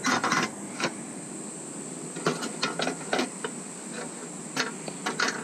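Three groups of short clicks and knocks from hand tools and fasteners being handled while the motorcycle's bash plate is taken off.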